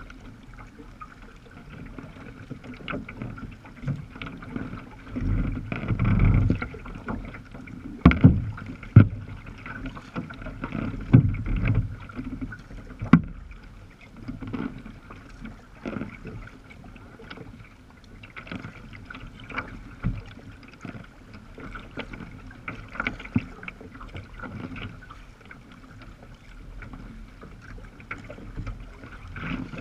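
Choppy sea water slapping and splashing against the hull of a sea kayak under way, heard through its deck: a steady rush of water and wind broken by irregular knocks and low thumps, the heavier slaps coming in the first half.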